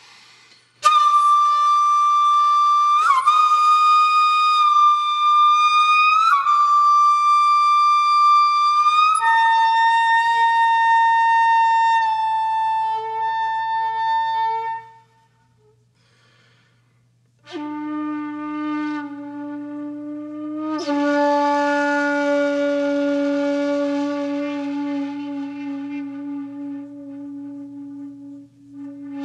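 Background music: a flute-like wind instrument playing slow, long held notes, sliding into several of them. It stops about halfway through, then comes back on lower notes.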